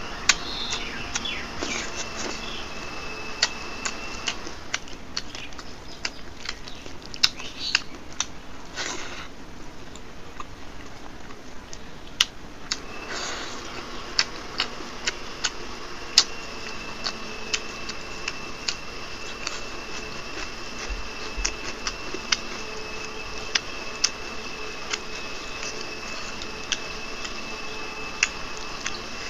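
Close-miked eating sounds of a person chewing a meal of rice and dal: soft chewing and lip-smacking with many irregular sharp mouth clicks.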